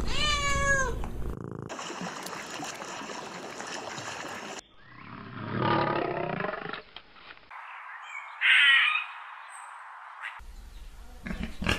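A string of separate animal calls. First a cat's single meow falling in pitch, then a couple of seconds of steady rough noise. A lion's low growl follows, swelling and fading, and about three-quarters of the way through comes a short squeaky call from a Eurasian red squirrel.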